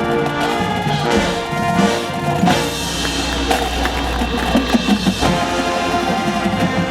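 Marching band playing, with held brass chords over the drumline. A quick run of loud drum hits comes about four seconds in.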